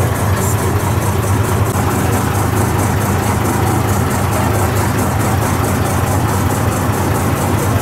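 Motorboat engine running steadily at close range: a loud low drone with a fast, even ticking over it.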